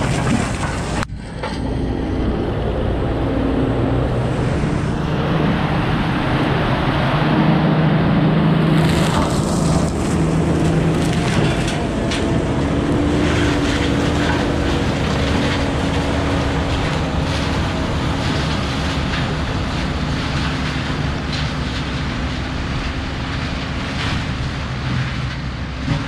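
Compact track loader's diesel engine running under load while its hydraulic disc mulcher shreds brush and small trees, with cracking and splintering of wood being chewed into mulch. The level dips briefly about a second in.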